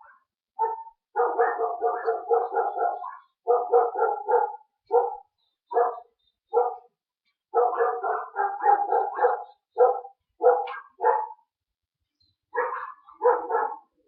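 A dog barking repeatedly, in quick runs of short barks several a second, broken by pauses and single barks.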